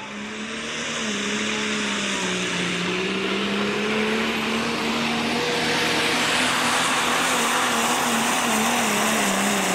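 A modified John Deere pulling tractor's engine at full throttle under load as it drags a weight sled down the track. It is a loud, steady drone with a strong rushing noise on top, building over the first second.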